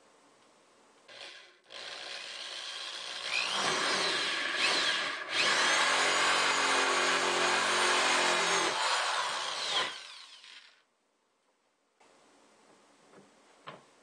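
Electric drill spinning a 2-inch hole saw through the thin plastic wall of a kitchen wastebasket: a brief trigger burst about a second in, then about nine seconds of cutting with a short break midway, the motor whine strongest in the second half. A few faint clicks near the end.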